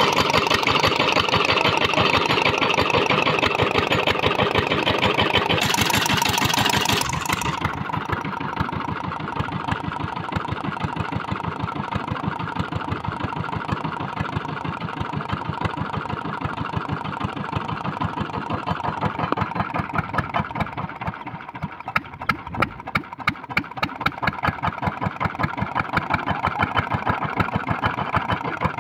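Small diesel engine driving a tube well drilling rig, running steadily with a fast regular firing beat. A hiss lies over it for the first seven seconds or so, and from about two-thirds of the way through a louder, sharper regular knock comes in.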